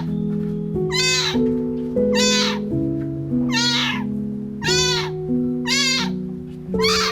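Kitten meowing over and over, about seven high-pitched meows, roughly one a second, over background music.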